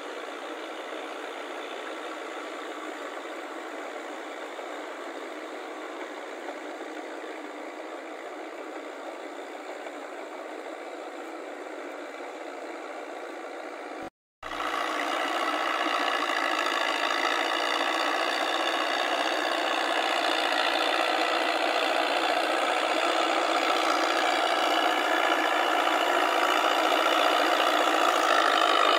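Massey Ferguson tractor engine running steadily while it drives a rotary tiller through a wet paddy field. The sound cuts out for a moment about halfway, then returns louder and keeps growing louder toward the end.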